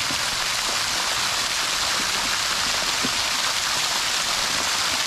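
Water jetting under its own pressure from the top of a pipe on a 340-foot-deep borewell and falling back as spray onto the ground, a steady splashing hiss.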